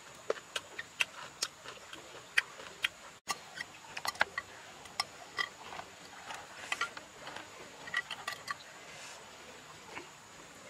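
Close-up eating sounds: irregular sharp clicks and wet smacks from chewing boiled chicken and pulling the cooked meat apart by hand, a few a second.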